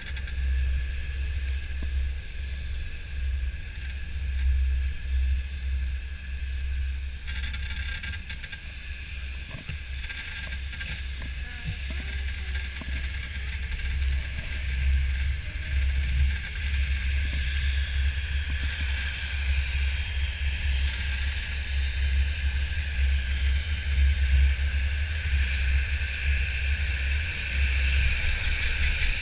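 Wind buffeting a GoPro's microphone on a moving chairlift: a constant, gusting low rumble with a steady hiss above it.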